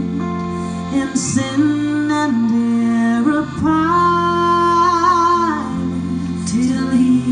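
Female close-harmony vocal trio singing live with small-band accompaniment; a long held chord with vibrato comes about three and a half seconds in and ends about two seconds later.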